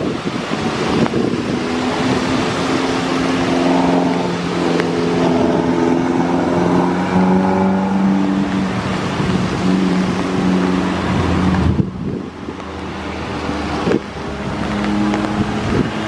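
Jet airliner engines running as the aircraft lands and rolls out on a rain-soaked runway, heard through strong wind buffeting the microphone. A steady drone with engine tones drops away suddenly about twelve seconds in, then rises again near the end.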